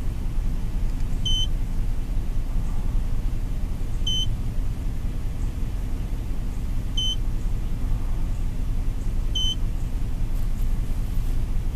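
Steady low rumble of a pickup truck's engine idling, heard inside the cab. Over it come four short, high single beeps two to three seconds apart, the key-press beeps of a Power Acoustik touchscreen car stereo head unit.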